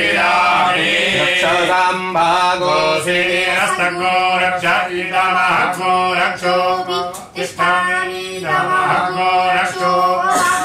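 A man chanting Sanskrit puja mantras in a continuous sung recitation.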